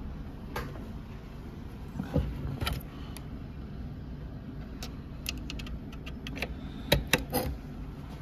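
Scattered clicks and light knocks from a car stereo head unit's metal chassis being handled and turned over, with the loudest cluster about seven seconds in, over a steady low rumble.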